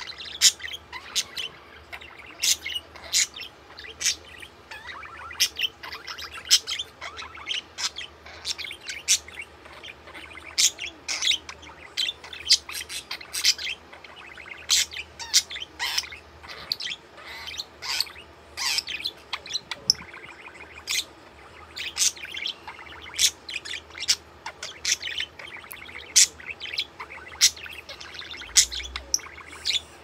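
Budgerigar chirping: an irregular run of short, high chirps, a few a second, without pause.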